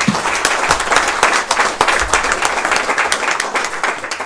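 Audience applauding: many people clapping.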